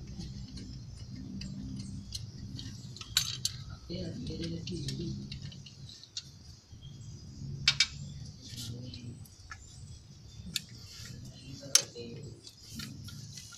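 Metal hand tools clinking and tapping on engine parts as fittings around the diesel injectors are worked on by hand, with the engine not running. Scattered light clinks, with a few sharper ones about three, eight and twelve seconds in.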